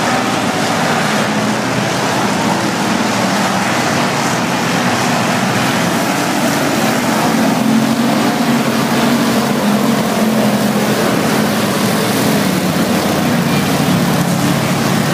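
A field of dirt-track race cars racing under green around the clay oval, their engines a loud, steady din that swells about halfway through as cars pass close by.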